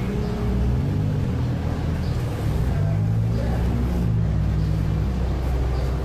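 Low, sustained background music: deep held notes that shift to new chords every second or two.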